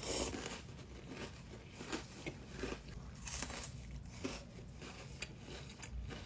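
Close-miked chewing of a cream-filled Oreo cookie: irregular crunches and wet mouth clicks, with no steady rhythm.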